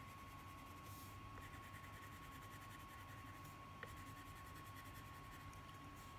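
Faint scratching of an orange crayon shading on paper, over a steady thin high tone.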